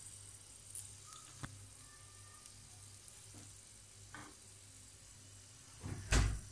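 Small cubed-meat skewers sizzling faintly on an electric grill, with a few light clicks and one louder knock near the end.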